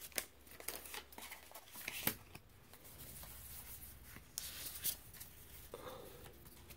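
Faint, scattered rustles and ticks of Pokémon trading cards and foil booster-pack wrappers being handled, a few short sharp ones spread through the quiet.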